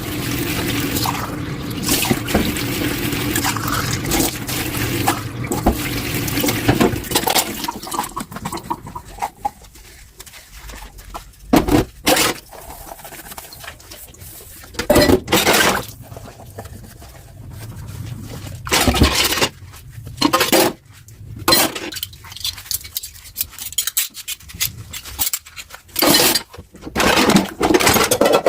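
Water running from a kitchen tap into a sink, steady for about eight seconds and then stopping. After that come short, separate bursts of splashing and clinks as dishes are handled and washed.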